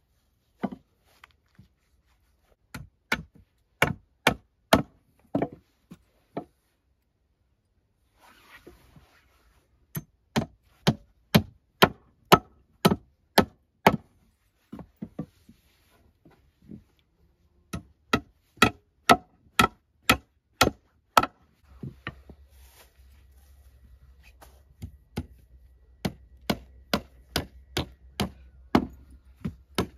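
Hammer nailing wooden planks onto a log, struck in runs of sharp blows about two a second with short pauses between runs; some blows ring briefly as they hit the nail heads.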